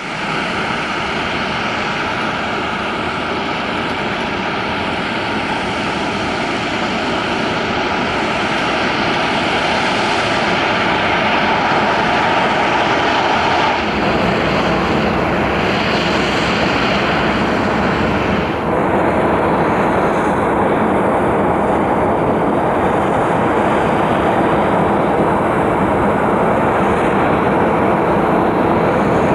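Eurocopter-Kawasaki EC-145 (BK-117C-2) helicopter running close by, its twin turboshaft engines and rotor making a loud, steady noise. A steady high whine carries on until about halfway, then stops as the sound turns deeper and slightly louder, shifting again a few seconds later.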